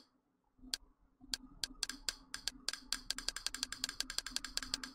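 Kodi's menu navigation sound played through a speaker: short sharp clicks, a few spaced ones and then a rapid run as the selection steps along the home menu, over a faint steady hum.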